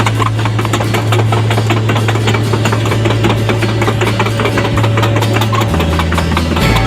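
Diesel engine of a Hitachi ZX135US-3 crawler excavator running, a steady low hum with a rapid, even clatter.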